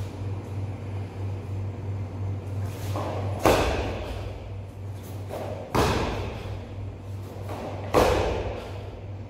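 Three heavy thuds, about two and a quarter seconds apart, of a bare foot stamping down onto foam floor mats during karate kata stamping steps, each preceded by a short swish of the cotton karate gi. A steady low electrical hum runs underneath.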